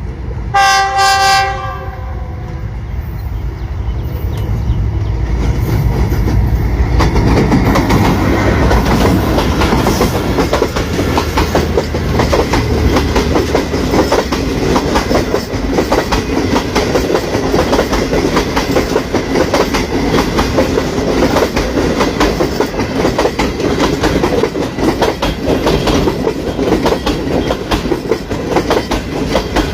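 GE U40 diesel locomotive's air horn sounding one brief loud blast, then the train approaching and passing with continuous wheel clatter over the rail joints.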